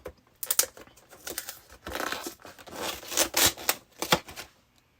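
Cardboard collection box and its packaging being torn open by hand: a run of uneven tearing and crinkling with a few sharp snaps, stopping about half a second before the end.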